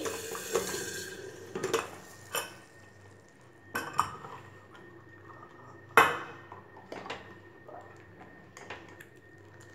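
A metal ladle knocking and scraping against a stainless-steel pressure cooker as sambar is stirred, in scattered clinks with the loudest clank about six seconds in. A hiss of the hot tempering fades out in the first second.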